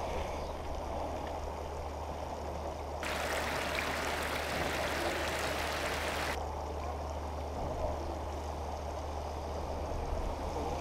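Floodwater running, a steady rushing with a low hum beneath. From about three seconds in to about six seconds it turns brighter and fuller, as muddy floodwater spills over a kerb edge.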